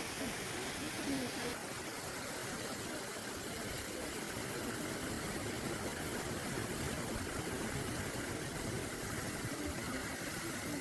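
Steady car engine and road noise, an even hiss with no sudden events.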